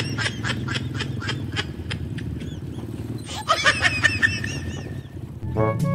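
Two runs of rapid, high-pitched giggling laughter over a motorcycle's engine running steadily at road speed.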